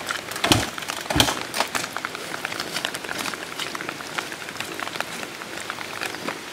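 Rain pattering, a steady hiss with many scattered drop ticks, and two dull thumps about half a second and a second in.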